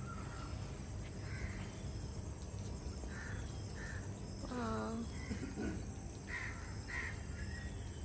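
Crows cawing: about six short, separate calls spaced a second or so apart, over a steady low background hum.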